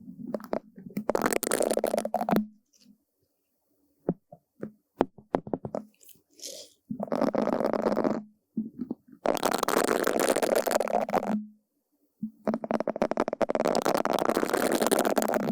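Brush bristles swept and rubbed against a surface close to the microphone: four dense, scratchy strokes of one to three seconds each, with a few light taps and clicks in the gap between the first and second.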